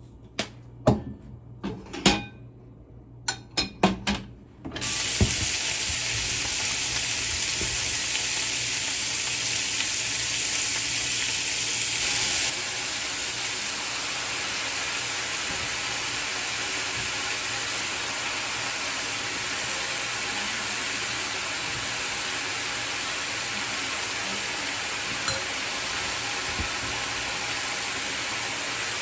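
A few sharp kitchen knocks and clicks, then food starts sizzling in a hot pan about five seconds in, a steady hiss that drops slightly in level about halfway through.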